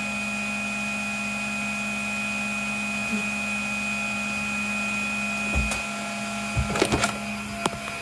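Vacuum cleaner motor running with a steady hum and whine. A few sharp knocks and bumps of the phone being handled come in the second half.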